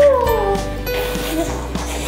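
Background music with steady held notes and a low bass. Right at the start a short voice-like sound rises and then falls in pitch.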